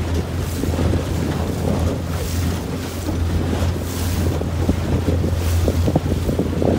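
Wind buffeting the microphone over rushing, splashing water as boats move fast through chop, with a steady low drone underneath. The splashing grows busier near the end.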